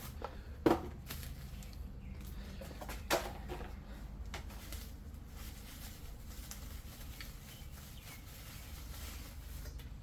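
Small carburetor parts and their packaging being handled: a few light knocks and clicks, the sharpest about a second in and another about three seconds in, over a steady low hum.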